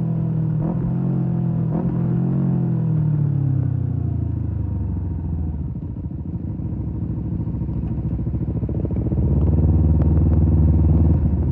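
Kawasaki Z250 parallel-twin engine through an aftermarket SeaPro muffler: revs fall steadily as the bike slows off the throttle, with two sharp clicks about one and two seconds in. It runs low for a few seconds, then gets louder as the throttle opens near the end.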